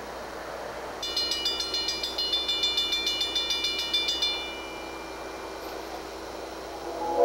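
Railroad grade-crossing bell ringing in rapid strikes, about five a second, starting about a second in and stopping a little after halfway. Near the end, a diesel locomotive's air horn starts to blow as the engine nears the crossing.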